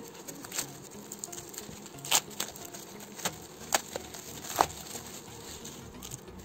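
Plastic bubble wrap crinkling and crackling as it is pulled and peeled off a small box by hand. Irregular sharp crackles, the loudest about two seconds in and again near four and a half seconds.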